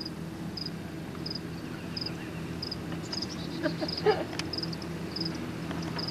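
An insect, cricket-like, chirping in a steady rhythm, about one and a half high chirps a second, over a steady low hum. A brief louder sound cuts in about four seconds in.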